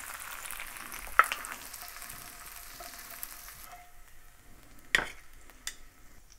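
Beef burger patty sizzling in a frying pan in its own grease, with a sharp click about a second in. The sizzle stops suddenly about two-thirds through, and a louder knock follows.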